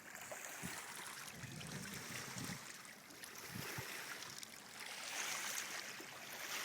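Steady rush of river water with a noisy, wind-like haze that swells and eases. A few short low knocks come in the first half.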